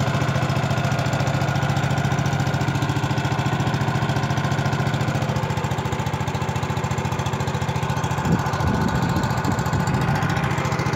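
Small outboard boat motor running steadily, with an even, rapid pulse.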